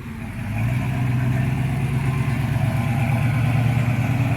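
A car engine running, growing louder about half a second in and then holding at a steady pitch.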